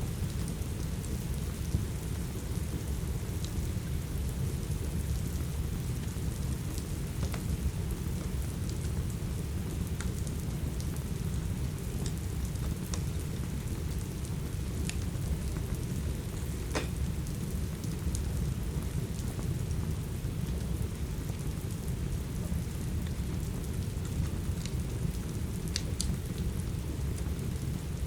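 Steady rain with a deep, constant low rumble, over which a wood fire gives a dozen or so scattered sharp crackles.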